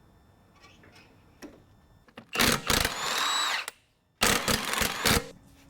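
Power tool, an impact wrench, run in two bursts with a whine that shifts in pitch, working a seized fastener loose.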